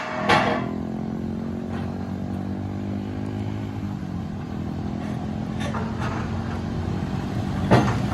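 Excavator's diesel engine running steadily, with a few sharp metal clanks: one just after the start, one near six seconds, and one near the end.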